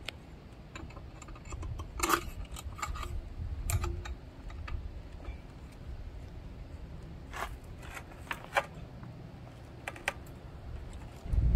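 Scattered metallic clicks and clinks as an AddMotor Soletan M-66X e-bike's front wheel and axle are handled and fitted into the fork, over a steady low rumble.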